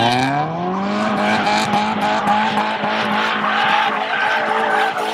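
Car engine revving up over the first second and then held at high revs while its tyres spin and squeal in a burnout.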